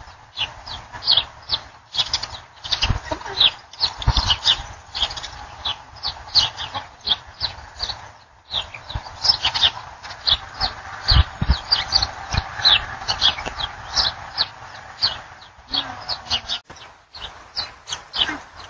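Small birds chirping, many short high calls overlapping in a continuous chorus, with a few low thumps.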